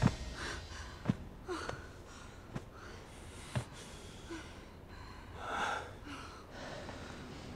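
A person breathing and gasping quietly, one louder breath near the end, with a few faint sharp clicks in between.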